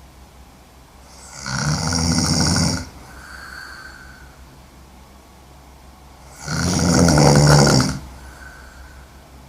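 A sleeping woman snoring heavily: two loud, rattling snores about five seconds apart, each lasting over a second, with a faint breath out after each.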